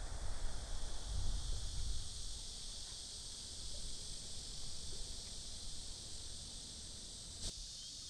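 Outdoor wetland ambience: a steady high-pitched insect chorus over a low wind rumble on the microphone. The rumble eases after about two seconds, and there is a single click near the end.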